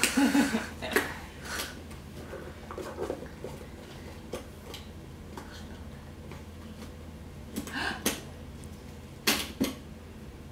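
Scattered sharp knocks and clatters of small children handling hard toys and books, with a pair of knocks close together near the end; a child's voice is heard briefly at the start.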